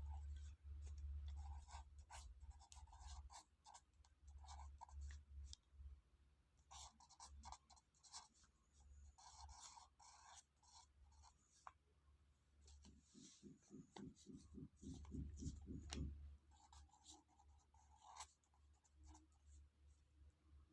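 Near silence with faint, intermittent scratching and rubbing over a low hum, and a brief run of quick, evenly spaced soft pulses about two-thirds of the way through.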